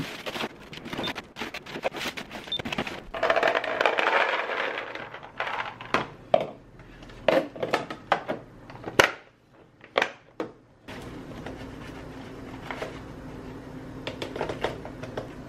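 Plastic food containers and grocery packets being handled and packed: rustling and clattering, then sharp clicks as a plastic container's clip-lock lid is snapped shut. From about eleven seconds a steady low hum sits under soft ticking and rustling as dry pancake mix is poured into a container.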